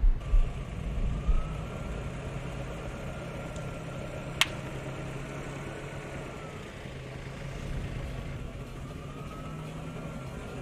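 Car engine running at low speed with a faint whine, low thumps in the first second or so, and one sharp crack about four seconds in.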